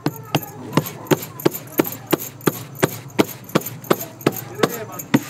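Bhakri dough being patted flat by hand in a metal plate: even slaps, about three a second.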